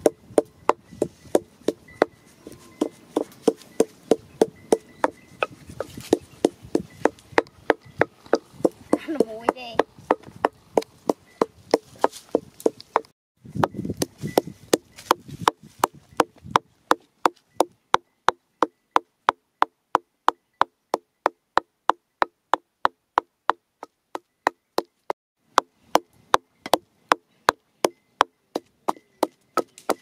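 Wooden pestle pounding dried chillies and garlic in a wooden mortar: sharp, evenly spaced knocks, about three a second, from about 13 s in. Before that, a similar run of quick knocks goes on amid rustling.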